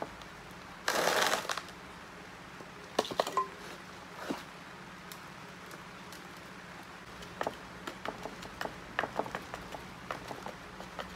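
Potting soil being poked and packed down with a wooden stick around plants in a plastic pot: a short scraping rush about a second in, then scattered small clicks and crackles of soil and leaves.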